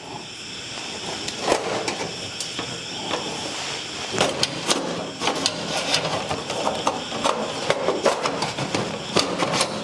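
Clicks and knocks of hands working on the metal case and hard drive of a desktop computer, over a steady mechanical hum that swells in during the first second.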